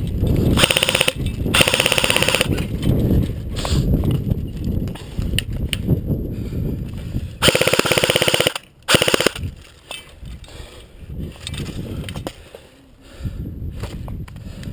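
Airsoft guns firing on full auto in several bursts of rapid shots, the longest lasting about a second, over rustling movement noise.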